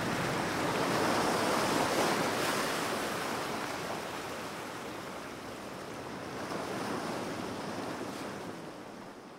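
Ocean surf washing in slow swells, fading out near the end.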